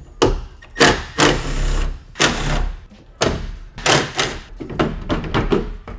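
Cordless drill/driver with a 10 mm socket run in several short bursts, the longest about a second, backing out the taillight mounting bolts. Knocks and clunks of metal and plastic come between the bursts.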